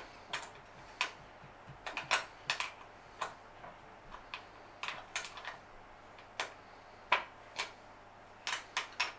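Irregular sharp metal clicks and clinks of bolts, a hex key and steel brackets being handled while an office chair's armrest is fitted to the seat.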